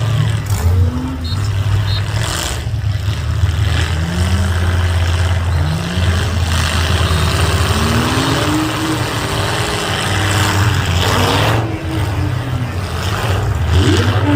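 Demolition derby cars' engines revving up and down again and again, over a steady low rumble, with a few brief knocks.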